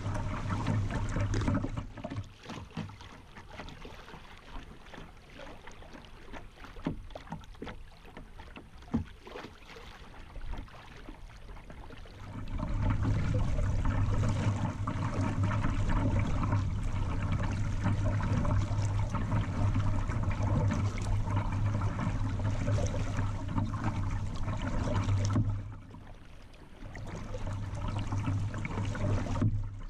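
River water rushing and gurgling against a kayak moving downstream, with a low rumble. It is quieter for the first part, then much louder for a long stretch from about twelve seconds in, dipping briefly near the end.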